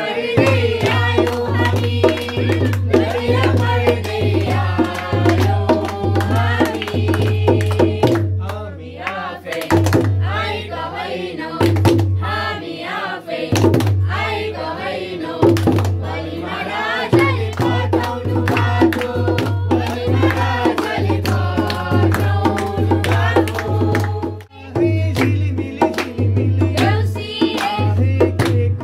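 A group singing a Nepali Tihar folk song, a man's voice leading and women's voices joining in, with hand clapping over a steady, rhythmic hand-drum beat.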